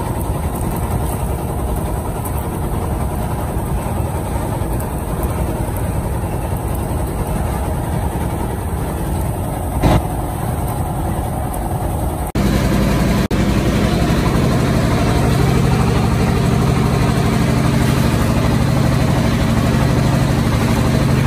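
Fishing boat's engine running steadily, a loud low hum, with a single knock about ten seconds in; after about twelve seconds the hum changes to a steadier, deeper drone.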